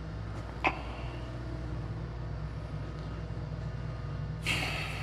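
Steady low hum of the treatment room's air conditioning, with one sharp click about half a second in and a rustling hiss starting near the end.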